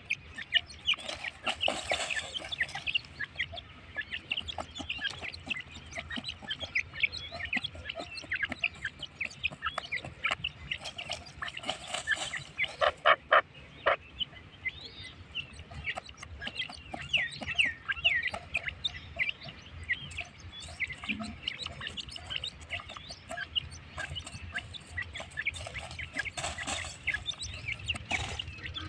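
Several teetar (francolins) chirping and clucking together, many short overlapping calls throughout, with louder flurries about two seconds in, around twelve to fourteen seconds, and near the end.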